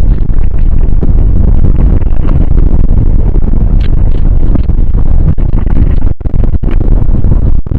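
Loud, continuous deep earth rumble of the earthquake kind, a dense low roar with no distinct pitch. It cuts out for an instant a few times near the end.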